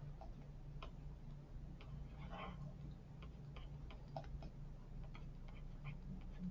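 Faint, irregular light clicks and a brief scratch of a pen on a writing surface as a circuit diagram is drawn, over a low steady hum.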